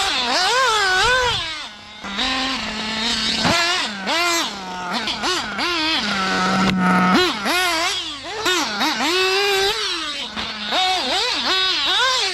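Nitro engine of a Kyosho Inferno MP10 TKI2 1/8 buggy, a REDS engine with tuned pipe, revving hard. Its pitch rises and falls quickly as the throttle goes on and off, and twice it settles to a lower steady note for about a second.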